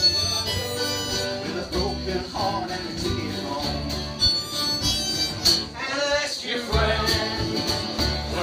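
Live acoustic folk music from a small group of players, with a plucked upright double bass giving a steady run of low notes under the tune.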